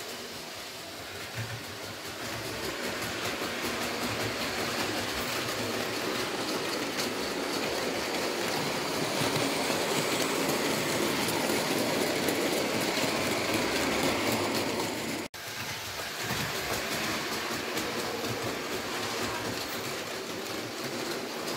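Märklin H0 model freight train of Ommi51 open wagons rolling over metal track, a steady rolling clatter of small wheels on the rails that grows louder as the train runs close past. The sound cuts out for an instant about fifteen seconds in.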